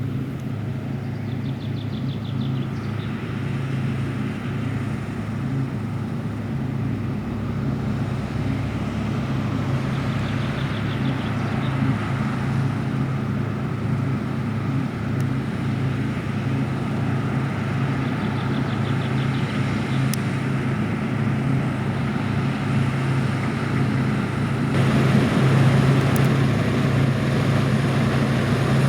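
Heavy diesel farm machinery running steadily under load during the wheat harvest: a continuous low engine drone with a broad mechanical hiss, slowly growing louder and stepping up about 25 seconds in as the machine comes closer.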